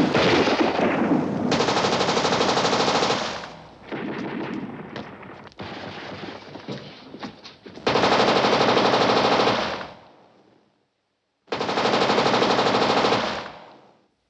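Machine gun firing in long sustained bursts, the first ending a few seconds in, followed by a quieter stretch of scattered shots and clatter, then two more bursts of about two seconds each with a short silence between them.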